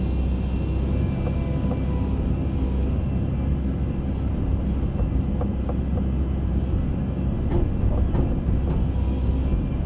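Concrete mixer running with a steady rumble and a few steady tones, with a few short knocks in the last couple of seconds.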